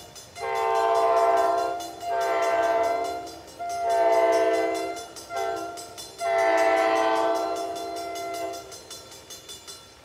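Horn of an approaching NJ Transit ALP-46A electric locomotive sounding in a series of long blasts, with a short blast just before the last and longest one. The horn fades away near the end, leaving a faint hiss of rain.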